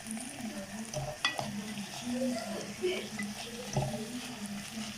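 Dried figs and garlic cooking in oil in a pot, sizzling steadily, with two light knocks about a second in and near the end.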